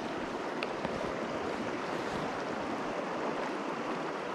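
Steady rushing of a fast, shallow river current running over rocks.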